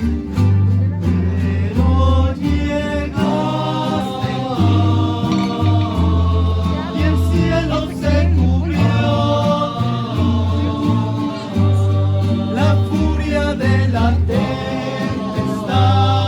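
A rondalla singing together to strummed guitars, with a plucked bass line underneath.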